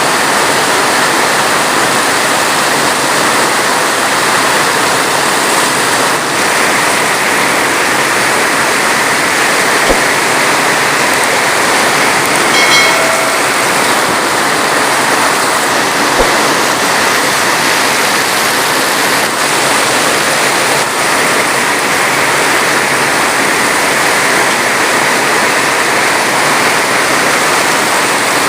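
Heavy rain falling in a steady, dense hiss, with no thunder. There are two faint clicks, and a short faint pitched sound about halfway through.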